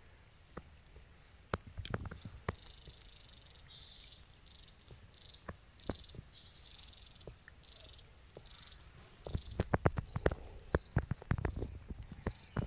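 Small woodland birds chirping, short high calls again and again, with scattered crackles of dry fallen leaves being stepped on that turn into a quick run of crunching in the last few seconds.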